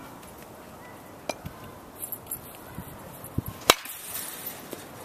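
A metal baseball bat hits a ball once with a sharp crack about three and a half seconds in, after a few fainter knocks.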